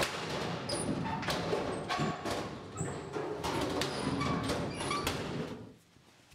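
Steel locker doors being yanked open and banged shut in quick succession: a rapid clatter of metal knocks and rattles with short bright rings, stopping suddenly near the end.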